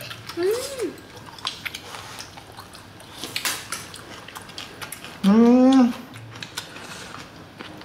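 Light clicks of chopsticks and tableware, with a man's short hummed 'mm' near the start and a loud, drawn-out 'mmm' of relish about five seconds in as he chews grilled food.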